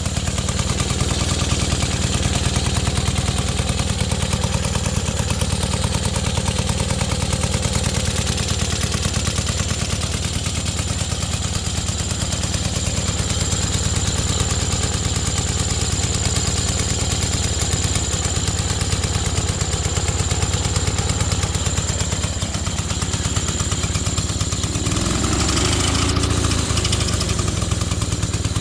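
The engine of a 1927 ATCO Standard motor lawnmower running steadily on its own with an even, rhythmic firing beat. A brief change in the sound comes about 25 seconds in.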